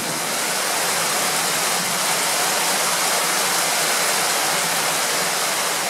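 Heavy thunderstorm rain pouring down, a loud, steady hiss.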